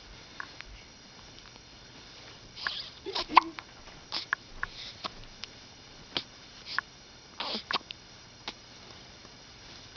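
A baby hiccupping: a string of short hics at uneven intervals, roughly one a second, some with a quick sniff of breath. The loudest comes about three seconds in.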